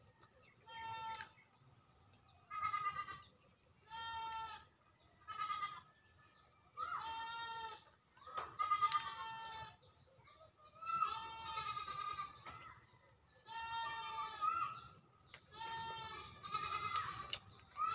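Livestock bleating over and over: about ten short calls, one every second or two, each with a wavering, trembling pitch.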